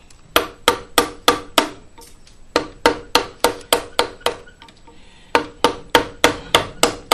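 Carving mallet striking a large number 3 carving chisel to rough out walnut: sharp taps, about four a second, each with a short ring. They come in three runs with brief pauses between.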